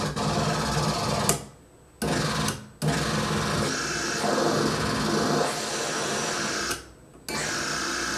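Hand-built circuit-bent noise machine putting out a harsh electronic buzz over a low droning hum, cutting out briefly three times as it is played with its toggle switches and knobs.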